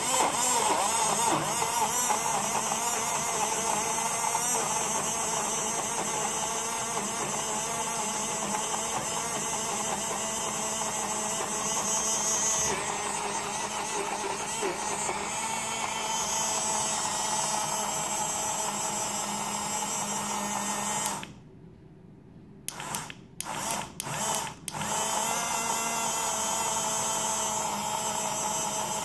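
Small battery-powered portable USB blender motor whirring as it spins its blade through mandarin juice. About 21 seconds in it stops, gives a few short bursts, then runs steadily again.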